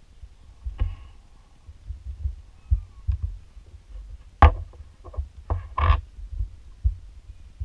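Clicks from working a laptop's touchpad and keys: a single click about a second in, then a cluster of sharp clicks between about four and a half and six seconds in. Under them runs an irregular low thumping.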